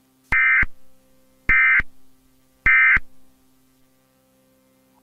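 Three short EAS digital data bursts, each a fraction of a second long, about a second apart: the SAME end-of-message tones that close an emergency alert. A faint steady hum sits underneath.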